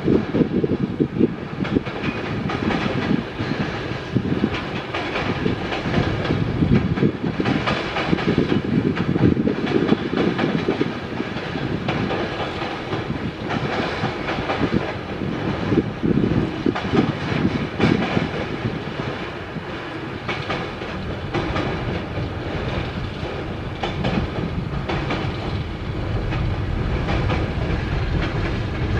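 Freight train cars rolling across a steel girder railway bridge: a steady rumble with repeated clicking and clacking of the wheels over the rails.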